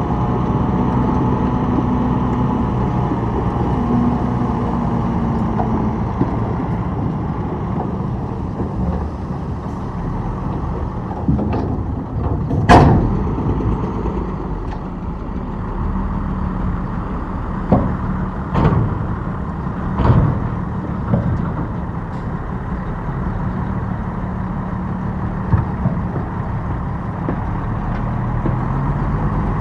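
Diesel engine of heavy earthmoving machinery running steadily, with a slight rise and fall in pitch in the first few seconds. Several sharp metallic clanks come from about 11 to 26 seconds in, the loudest about 13 seconds in.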